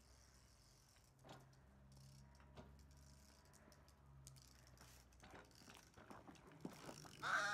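Faint rattling and clicking of a child's tricycle rolling over asphalt, the clicks coming more often as it nears. A child's high-pitched voice breaks in near the end.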